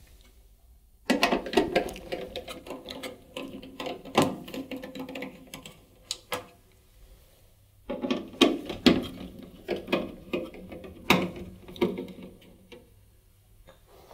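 Hand screwdriver undoing two screws from the sheet-metal back of a tumble dryer: two spells of rapid clicking and metal scraping, one for each screw, with a short pause between them.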